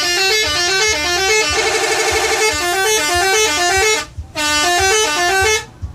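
Telolet multi-tone horn on a PO Bejeu bus playing its tune: a run of quick stepped notes with a held, warbling chord in the middle. It cuts off about four seconds in, then a shorter second run of notes plays and stops near the end.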